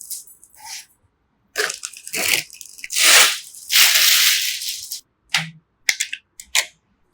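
Crinkling and rustling handling noise, loudest about halfway through, followed near the end by a series of short sharp clicks.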